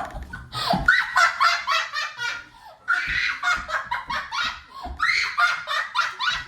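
Children laughing hard, high-pitched giggles in quick pulses in three long bouts, with a sharp click at the very start.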